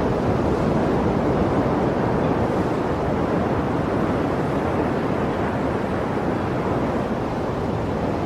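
Sea surf: a steady, unbroken rushing of waves with no single distinct breaker, swelling only slightly in loudness.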